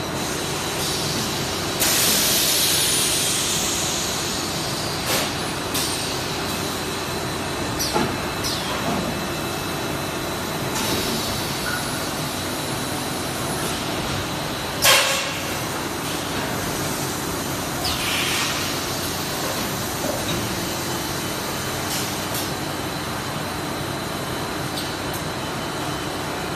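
JWZ-BM 12D extrusion blow molding machine running while producing 10-litre jerrycans. A steady hum with a faint high whine is broken by compressed-air hisses and clicks as its pneumatics fire: a long hiss about two seconds in, the loudest a short sharp blast about halfway through.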